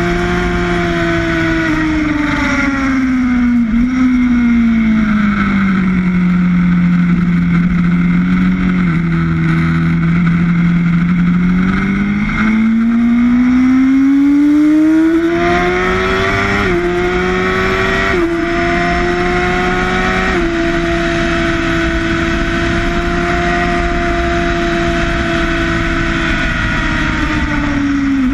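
Sportbike engine heard onboard on a racetrack, with wind rush. The engine note falls for several seconds as the bike slows, stays low, then climbs again from about halfway as it accelerates. It jumps in three quick steps and holds steady near the end.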